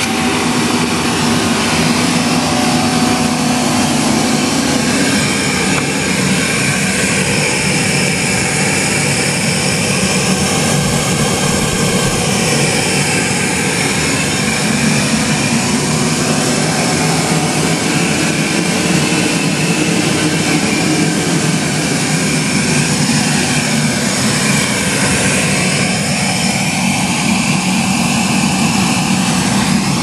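A Goblin Triumph canister vacuum cleaner from 1945–51 running steadily, its motor humming and air rushing through the hose. The pitch of the airflow slowly dips and rises a couple of times. The old motor is running smoothly after only a cleaning.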